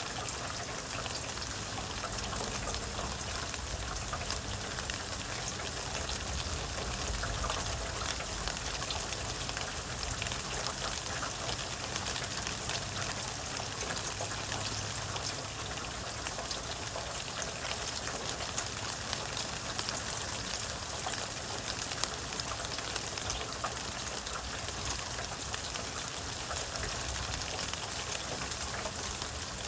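Steady rain falling, a dense patter of individual drops over an even hiss.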